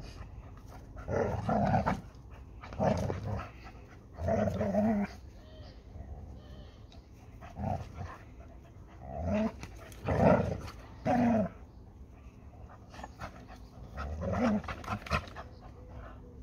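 Dog growling in short bursts, about eight of them, while tugging at a toy in a tug-of-war with another dog; the growls are play, not a fight.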